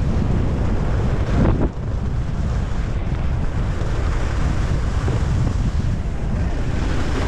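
Wind rushing over the microphone of a skier moving downhill, mixed with the hiss of skis sliding on packed snow. A brief louder swoosh about a second and a half in.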